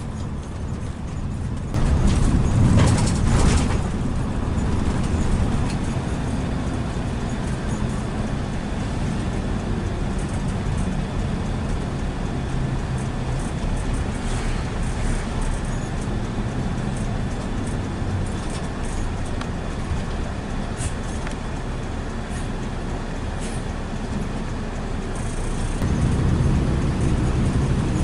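Intercity bus running along the road, a steady mix of engine and road noise. It grows louder for a couple of seconds about two seconds in, and again near the end.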